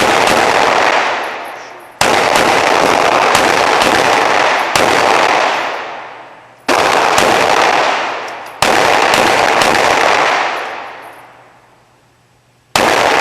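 A 25-year-old 9mm Glock pistol fired five times at an uneven pace, one to four seconds apart. Each shot is very loud and rings on, fading over a second or two.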